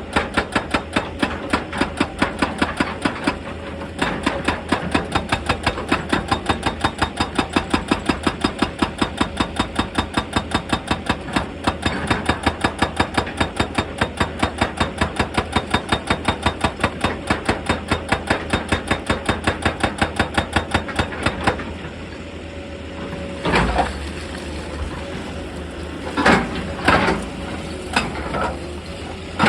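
Excavator's hydraulic breaker hammering rock in rapid, even blows, several a second, over the running diesel engine. The hammering stops a few seconds before the end, leaving the engine running with a few separate knocks of rock.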